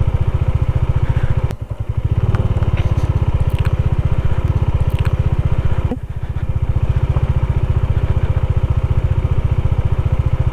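Bajaj Dominar 400's single-cylinder engine running steadily under way on a rough, rocky track. The throttle eases off briefly about one and a half seconds in and again about six seconds in. A few sharp crackles come from loose stones under the tyres.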